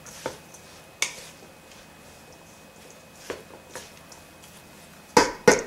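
Wooden salad servers tossing a quinoa and bean salad in a stainless steel bowl: a few soft, scattered clicks of wood against the bowl, then two louder knocks near the end.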